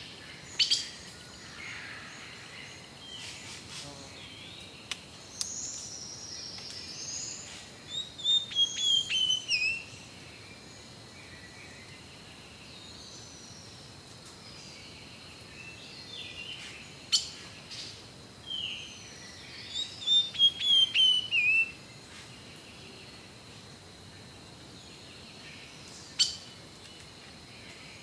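Wild birds calling, with one bird twice giving a quick falling series of about six short notes, some twelve seconds apart, amid scattered other calls. A faint steady high whine runs underneath, and a few sharp clicks stand out.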